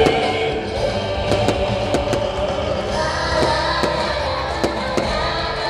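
A song with singing plays loudly, with the sharp pops of fireworks bursting overhead about ten times.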